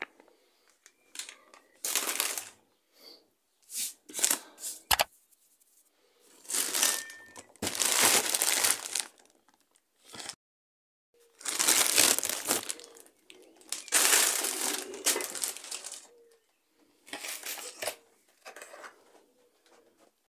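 Thin plastic shopping bags and food packaging rustling and crinkling as groceries are handled and unpacked, in irregular bursts of a second or more with short pauses between them. There is one sharp knock about five seconds in.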